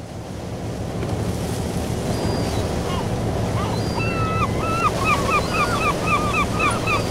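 A fishing boat running through choppy sea: waves and wind rushing, over a steady low engine hum, fading in at the start. From about two seconds in, a seabird calls in short repeated chirps, about three a second.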